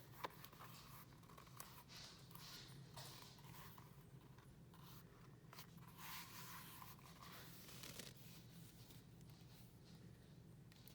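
Faint rustling and scraping as a leather notebook cover is handled and examined, with a light click just after the start, over a low steady hum.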